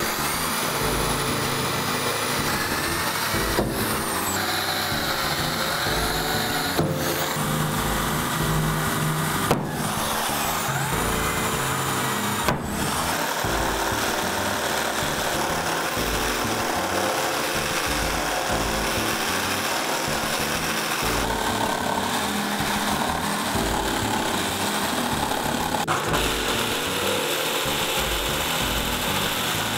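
Hitachi cordless jigsaw running steadily as its blade cuts the hob opening through a kitchen worktop, a continuous buzzing saw noise. Background music with a steady beat plays under it.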